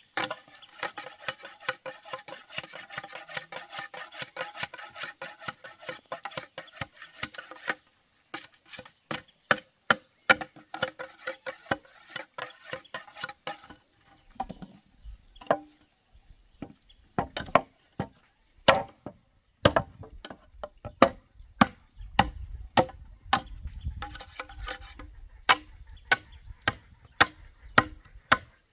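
Chopping on a wooden board: quick, even strokes for about the first eight seconds, then slower, sharper, louder chops.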